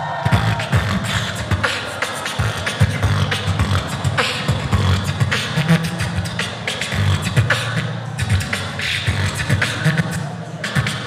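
Solo beatboxing into a handheld microphone: a fast, unbroken run of sharp percussive mouth sounds over a low, sustained bass.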